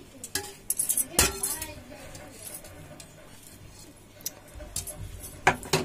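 Stainless steel bowl and plate clinking as vegetables are handled in them: a cluster of sharp clinks in the first second or two, then two loud ones near the end.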